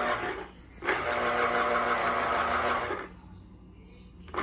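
Electric citrus juicer's motor spinning its reamer cone against an orange half: a steady whirring hum. It cuts out about half a second in and starts again just under a second in, runs for about two seconds, then stops for over a second and starts once more near the end; the cone turns one way on one run and the other way on the next.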